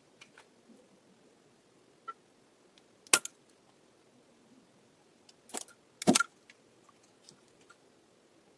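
A few sharp clicks and knocks of small hard objects being handled: one loud click about three seconds in, then two more close together around five and a half and six seconds in, with faint ticks between.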